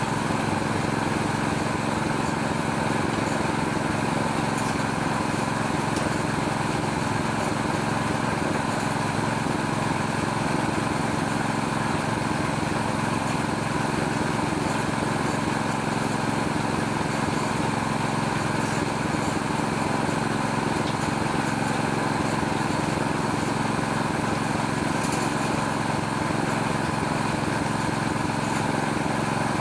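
Small Robin-type single-cylinder petrol engine running steadily at a constant speed, driving a homemade oil palm fruit stripping machine.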